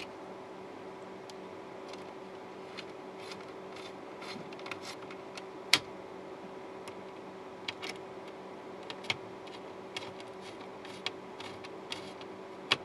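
Scattered small clicks and taps of a screwdriver working the mounting screws of a circuit board on an LCD monitor's metal chassis; the loudest click comes about six seconds in. A faint steady hum runs underneath.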